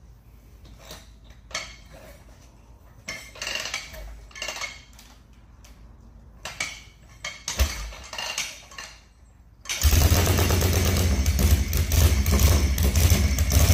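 Harley-Davidson 45 flathead V-twin being kick-started: several kicks with short metallic clanks, then about ten seconds in the engine catches and runs loudly with a fast low beat.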